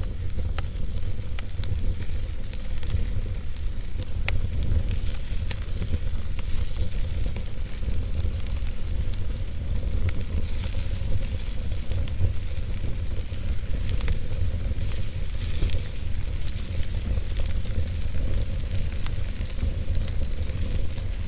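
Wood fire burning in a fireplace, crackling with frequent small sharp pops over a steady low rumble.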